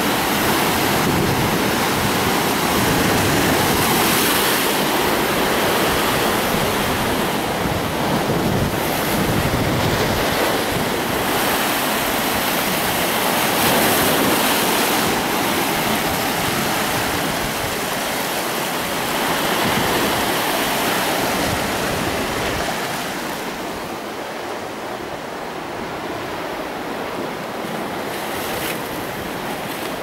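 Atlantic surf breaking and foaming over dark volcanic shore rocks, a steady rushing wash that eases somewhat about three-quarters of the way through.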